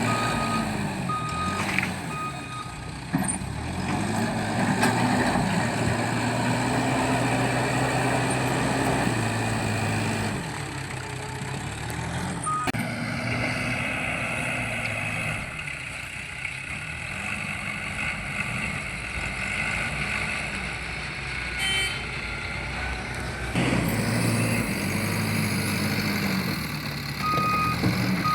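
Diesel engine of a Case 770 backhoe loader, working hard with its revs rising and falling again and again as it runs its hydraulics. A reversing alarm beeps near the end.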